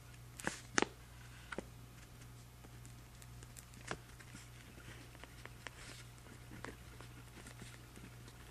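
Pen writing on journal paper: scattered small scratches and ticks of the pen, the sharpest about half a second and a second in, over a faint steady low hum.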